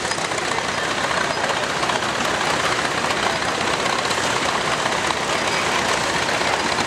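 Antique farm tractor engines running steadily at low speed.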